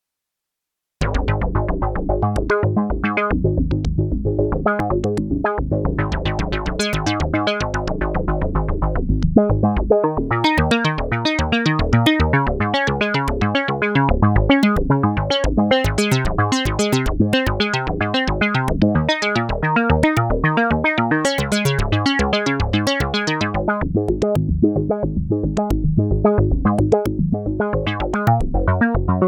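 Black Corporation ISE-NIN synthesizer playing a dry, unprocessed patch: a fast stream of short, repeating notes starting about a second in, with the pattern shifting higher about nine seconds in.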